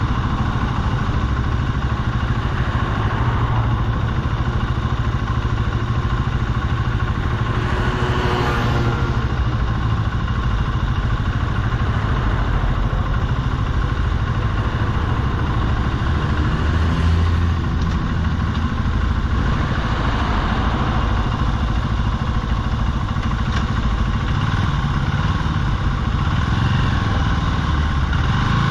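Small 125cc single-cylinder engine of an Archive Motor AM60 cafe racer idling steadily while the bike stands still, with a few brief swells in its note.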